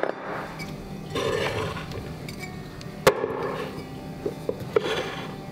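Ceramic kitchen canister and bottles being set down and shifted on a countertop tray: a sharp knock at the start and another about three seconds in, with a few lighter clinks near the end.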